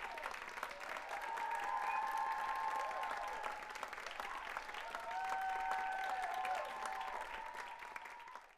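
Audience applauding, with a few drawn-out cheers rising over the clapping; the applause cuts off suddenly near the end.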